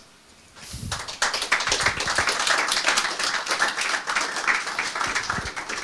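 Audience applauding, a dense patter of many hands that starts about half a second in and carries on steadily.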